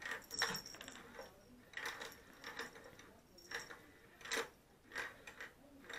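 Faint, irregular light clicks and taps, about eight or nine of them, as a cat gets up and noses into a round plastic ball-track cat toy.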